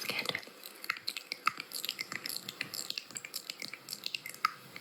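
An irregular patter of small, wet clicks and crackles close to the microphone, several a second.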